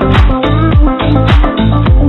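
Background dance music with a steady beat and deep bass notes sliding down in pitch about twice a second.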